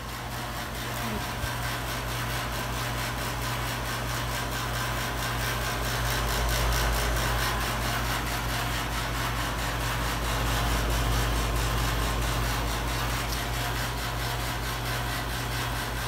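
Outdoor heat pump unit running: a steady low hum over an even rushing noise from the unit, swelling slightly midway.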